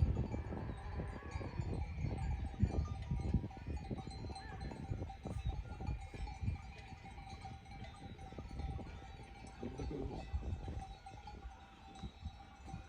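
A flock of livestock with bells clinking and animal calls, over a constant uneven low rumble.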